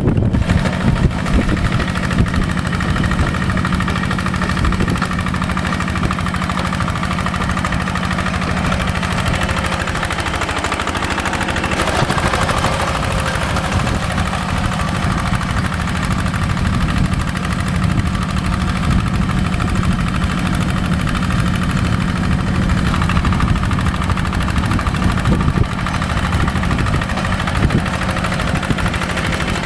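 Paddy tractor's diesel engine running steadily at a fast, even chug, working in the field, with a brief shift in its note about ten seconds in.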